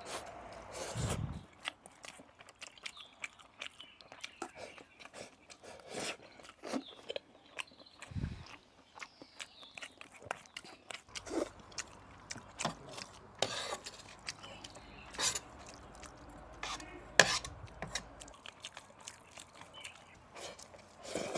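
Close-up eating sounds of someone chewing mapo tofu: irregular mouth smacks and soft chewing with scattered clicks and taps, the sharpest click about 17 seconds in.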